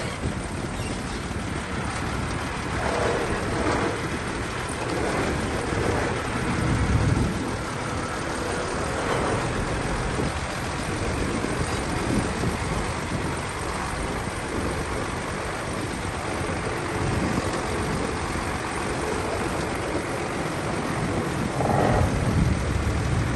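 Bulldozer's diesel engine working under load, steady, swelling louder now and then.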